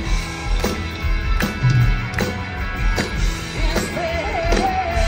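Live rock band playing through a large outdoor PA, heard from the crowd: a steady drum beat with electric guitars, and a wavering melodic line near the end.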